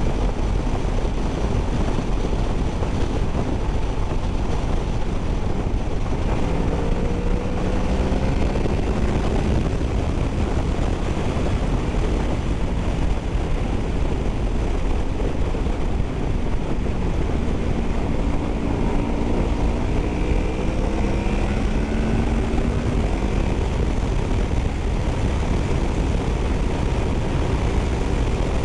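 Honda VFR800F V4 motorcycle engine running under heavy wind noise on the microphone while riding. The engine note rises twice, a few seconds in and again past the middle, as the bike pulls faster.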